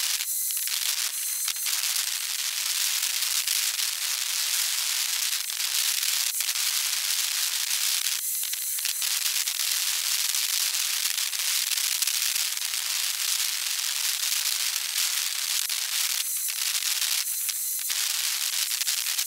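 A dense, steady crackling hiss, high-pitched and full of tiny clicks, that thins out briefly several times: outdoor ambience played back fast-forwarded.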